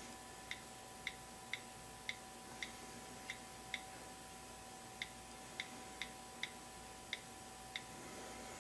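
iPhone on-screen keyboard key clicks as a password is typed: about thirteen short, crisp clicks at an uneven pace of roughly two a second, with a pause a little before halfway. A faint steady whine sits underneath.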